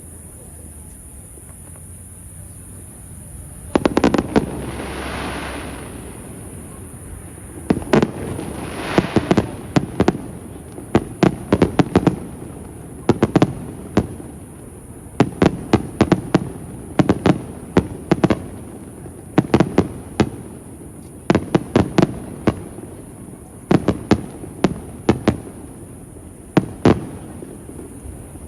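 Aerial fireworks display: one loud shell burst about four seconds in with a hissing tail lasting about two seconds, then from about eight seconds on a rapid run of sharp bangs in quick clusters.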